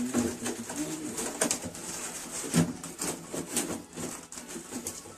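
A pigeon cooing, a couple of short low coos in the first second or so, over scattered clicks and knocks.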